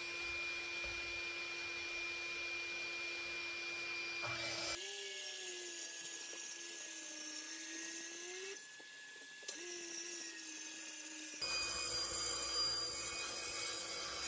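Corded DeWalt circular saw cutting a sheet of plywood along a clamped straight-edge guide, with a vacuum drawing dust through a hose on the saw. A steady motor whine over cutting noise, sagging slightly in pitch partway through the cut and then recovering.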